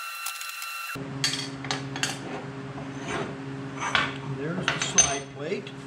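Steel parts and hand tools clinking and knocking on a steel work table: a handful of sharp metallic clinks at irregular intervals, over a steady low hum.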